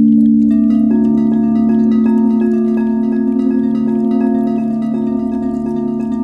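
Singing bowl ringing in a loud, steady low drone that pulses gently, joined about half a second in by a cascade of bright chime notes that keep ringing and overlapping over it.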